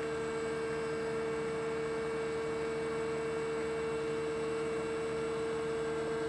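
Steady electrical hum: one constant mid-pitched tone over a faint hiss, unchanging throughout.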